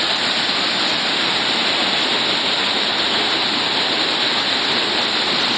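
Steady rush of falling water from a waterfall and its rocky mountain stream, an even, unbroken roar.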